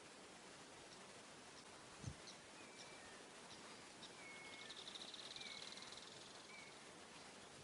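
Faint birds calling with short chirps and whistled notes over a steady hiss. A rapid buzzing trill lasts about two seconds in the middle, and a soft low thump comes about two seconds in.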